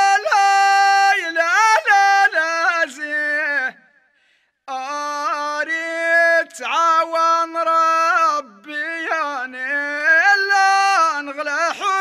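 A solo voice singing a Moroccan Amazigh (Tashelhit) song, long held notes sliding and wavering in pitch. It breaks off for a moment about four seconds in, then carries on.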